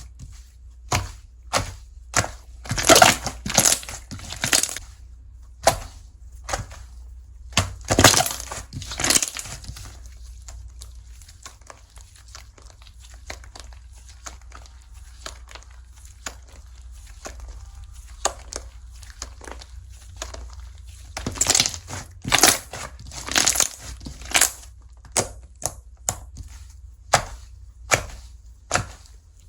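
Slime being pressed, stretched and squished by hand, giving clusters of sharp crackling pops and clicks, with a quieter stretch of soft squishing in the middle. A low steady hum runs underneath.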